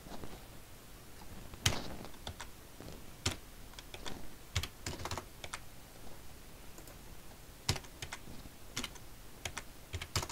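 Typing on a computer keyboard: irregular keystrokes in short runs with pauses between, a few key presses louder than the rest.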